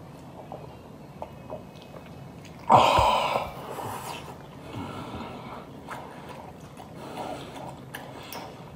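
A person eating with his mouth close to the microphone: quiet chewing with small wet clicks, and one loud, short burst of mouth noise about three seconds in.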